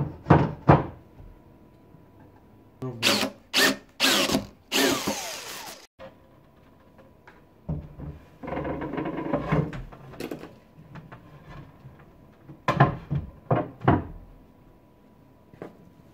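Knocks on wood and rough wood scraping as a wooden desktop and drawer cabinet are tapped and shifted into place. There are sharp knocks at the start and again near the end, with loud scraping and rattling in between.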